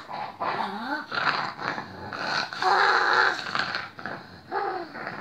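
A girl's wordless vocalizing: drawn-out moans and growl-like sounds sliding up and down in pitch, loudest about halfway through.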